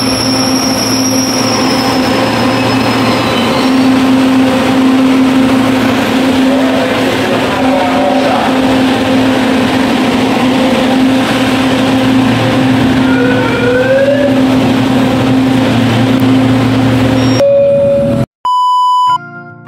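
Manila LRT Line 2 light-rail train running: a steady, loud hum and rumble from inside the car, with a rising whine a little past the middle. Near the end the train noise cuts off abruptly and a short, loud electronic beep sounds.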